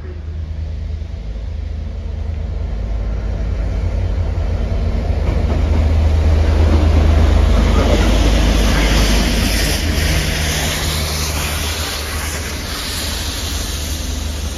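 Direct Rail Services Class 66 diesel locomotive passing close by, its EMD two-stroke diesel engine running with a heavy low hum that is loudest about halfway through. The hiss and clatter of the rail head treatment train's tank wagons rolling over the rails follows.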